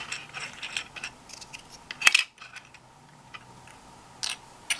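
Loose plastic keycaps clicking and clattering against each other as they are picked through and set down, with the sharpest click about two seconds in.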